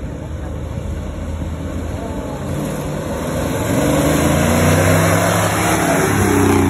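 Mid-1960s Chevrolet pickup's engine running as the truck drives slowly past at close range, its low note growing louder as it approaches and loudest near the end.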